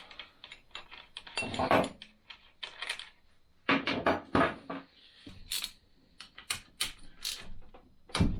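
Metal hand tools and bolts clinking and clicking in scattered bursts as a motorcycle brake caliper is unbolted and taken off.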